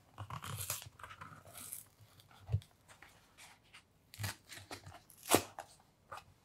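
A paperboard cream carton being opened by hand: the gable top crinkles and crackles as it is pried apart, with a soft thump about two and a half seconds in and a loud, sharp crack a little after five seconds as the spout comes open.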